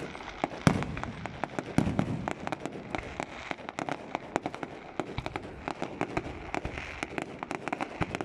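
Fireworks show: aerial shells bursting in a dense run of sharp pops and crackles, with a couple of louder booms within the first two seconds.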